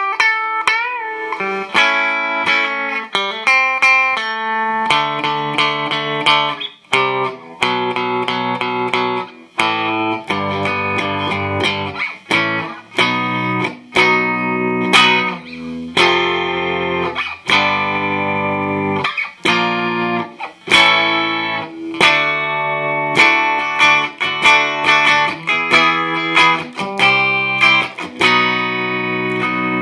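Fender Mustang reissue electric guitar played through a Fender 212R amplifier: a run of picked chords and single-note riffs, with a note bent up and down about a second in.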